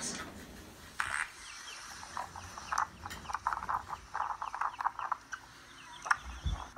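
A goat bleating in a run of short, quick, stuttering calls, played from a video through laptop speakers.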